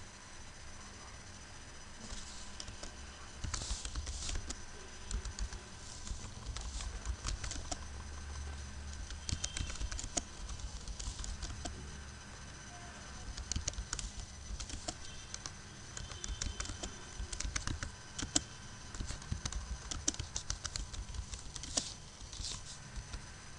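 Typing on a computer keyboard: irregular runs of key clicks broken by short pauses, over a faint steady background hum.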